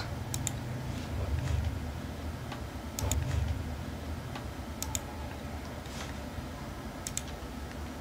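A few sharp computer mouse clicks, some in quick pairs, spaced a couple of seconds apart over a steady low hum.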